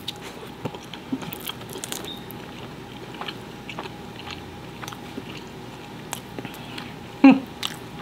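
Close-miked biting and chewing of a slice of birria pizza, with small crunches and wet mouth clicks, and a short hum about seven seconds in.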